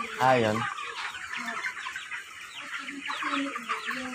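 A large flock of 25-day-old broiler chickens calling constantly: many overlapping high peeps and chirps, with occasional lower clucks.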